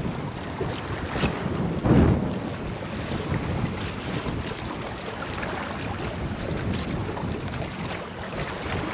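Wind buffeting the microphone over the wash of water, with a stronger gust about two seconds in.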